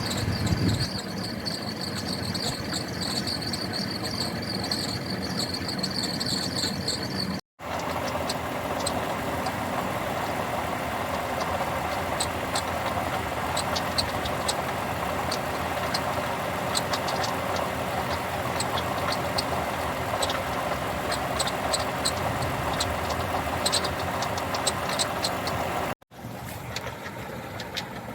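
2007 Lexus RX350's 3.5-litre V6 engine running, with a rattle and quick irregular ticking over the steady engine noise, and a steady high whine for the first several seconds. A shop diagnosed a leaking water pump as causing the rattling from the engine bay.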